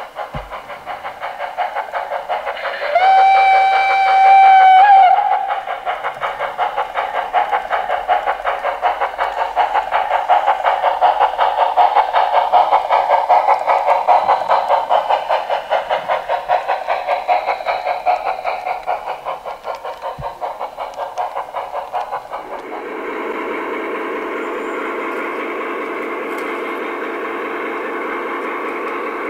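Garden-railway model steam locomotive running, its sound unit chuffing fast and evenly, with a steady whistle blast lasting about two seconds starting some three seconds in. About three quarters of the way through, the chuffing gives way to a steady drone with a fixed pitch, like a model diesel locomotive's engine sound.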